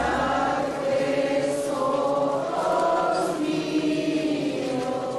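A crowd of people singing a slow religious hymn together, in long held notes.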